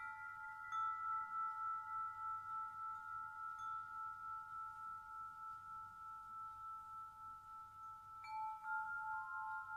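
Slow background music of ringing chime tones. Two notes hold and waver through most of it, and fresh notes are struck near the end.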